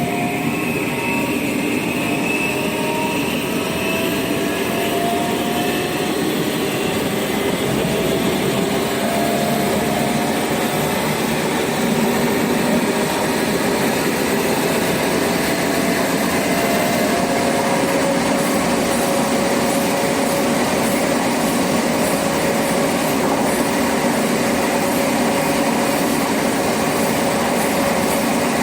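Traction motors of a Renfe Series 446 electric multiple unit heard from inside the carriage while running: a steady rumble with several whining tones that climb slowly in pitch over roughly the first half, then hold.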